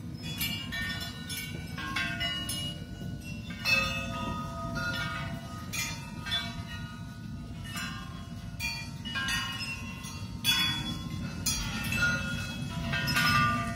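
Struck metal objects ringing out in an improvised percussion piece: many irregular strikes, each leaving bell-like tones that overlap and die away, over a steady low hum.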